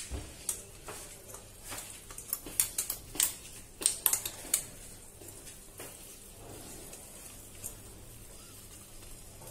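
A steel spoon clicks and scrapes against a kadai as thick masala is stirred, with a quick run of sharp clicks in the first half. Under it is the faint sizzle of the masala cooking in the pan.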